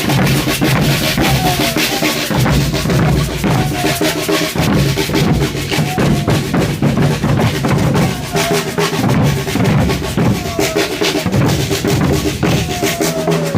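A batucada-style percussion band drumming in a driving, steady rhythm, with heavy bass drums and snare-like drums together, and short falling tones sounding now and then over the beat.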